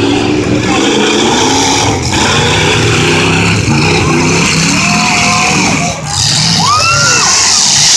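Demolition derby trucks' engines revving and running hard as they ram each other in the pit, the pitch rising and falling, with people in the crowd shouting over them.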